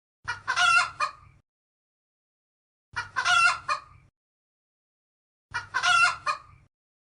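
Rooster crowing three times, about two and a half seconds apart, each crow the same.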